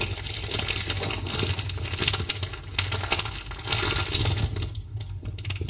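Dense crackling, clicking static over a steady low hum, easing off near the end.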